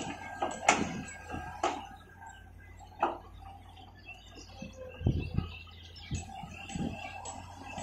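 A Sumitomo Link-Belt long-reach excavator working, its bucket and boom linkage giving irregular metallic knocks and clunks over a faint steady engine hum. The knocks are sharpest at the start and about three and five seconds in. Small birds chirp between them.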